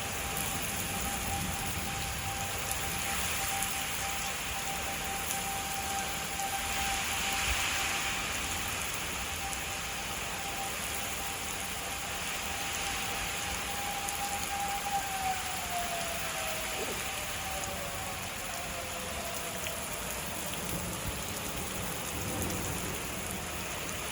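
Steady rain, with an outdoor tornado warning siren holding one steady tone and then winding down in pitch over a few seconds, about two-thirds of the way through.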